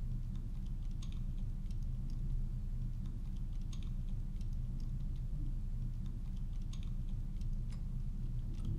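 Computer keyboard typing: irregular, faint key clicks over a steady low hum.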